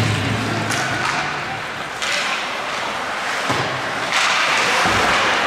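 Live ice hockey game sound in a rink: a broad wash of skating and play noise with thuds, growing suddenly louder about two seconds in and again about four seconds in. A rock guitar track fades out in the first second.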